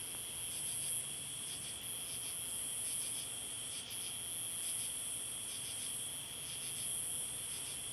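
Crickets and other night insects calling in a continuous chorus: a steady high trill with a short pulsed call repeating about once a second over it.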